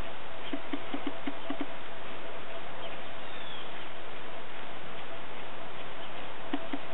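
Steady outdoor hiss with a faint constant hum. About half a second in comes a quick run of about six low chirps, and another run comes near the end. A few faint, high, falling bird whistles sound in between.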